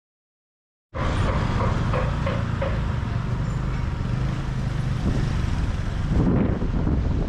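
Motorbike engine running with wind buffeting the microphone while riding, a steady loud rumble that starts suddenly about a second in.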